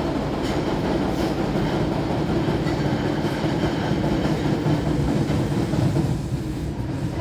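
Osaka Metro 30000A series subway train running, heard from inside the car: a steady rumble of wheels on rail with a faint high motor whine and occasional light clicks. It gets somewhat quieter near the end.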